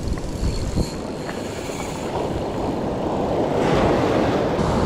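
Ocean surf breaking and washing up the beach, with wind rumbling on the microphone; the wash grows louder about three and a half seconds in.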